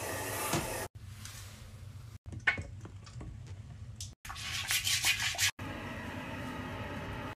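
Toilet-cleaning sounds in short clips with abrupt cuts: a sponge rubbing on the toilet seat and a toilet brush scrubbing the bowl. The loudest part is a run of quick scrubbing strokes about four to five seconds in, after a sharp click near the middle.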